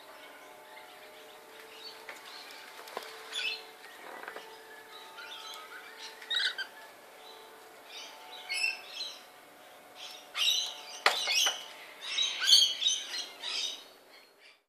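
Rainbow lorikeet giving short, harsh chirps and screeches at irregular intervals. The calls come faster and louder in the second half, then fade out near the end.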